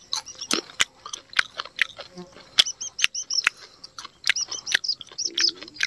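A man chewing chili peppers close to the microphone, giving irregular crisp chewing clicks. Small birds chirp in repeated short high notes through the middle.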